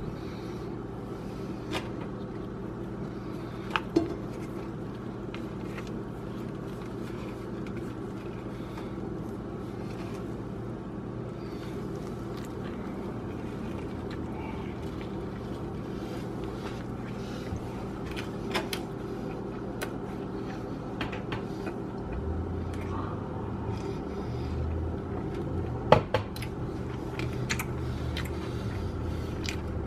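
Steady background hum with a few scattered sharp clicks and knocks, the loudest near the end; a low rumble joins about two-thirds of the way through.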